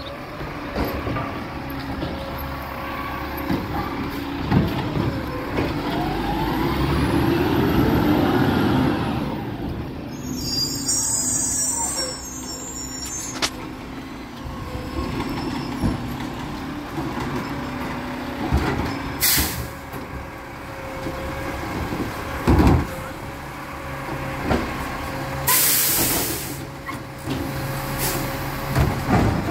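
Garbage truck engine running, rising in pitch as it revs about a quarter of the way in. A sharp air-brake hiss follows, with more short hisses and a thump later.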